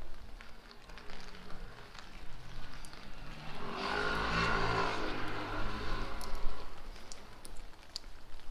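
A car drives past on a wet street. Its engine and the hiss of tyres on the wet road swell to a peak about four to five seconds in, then fade away, with scattered taps of rain drips around it.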